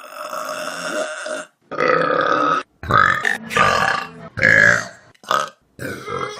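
Loud human burps, several in a row, each a short pitched belch with abrupt starts and stops and brief silences between them.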